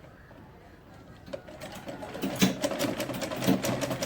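Black-head domestic sewing machine stitching a seam, a run of rapid, even needle strokes that starts about a second and a half in.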